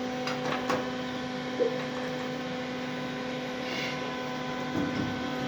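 Steady electrical hum, with a few faint clicks in the first couple of seconds.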